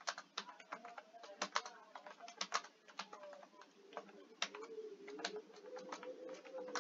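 Computer keyboard typing: irregular, quick key clicks, several a second.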